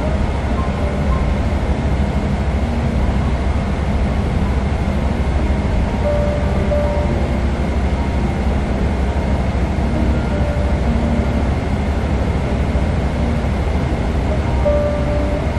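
Steady rumble and rush of a Boeing 777-300ER's cabin noise, engines and airflow heard from inside the cabin, with no breaks or sudden sounds.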